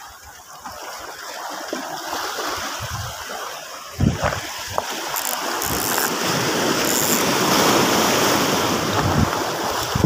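Small sea waves washing and splashing over shoreline rocks. The sound grows louder about halfway through, with a few short knocks of handling around that point.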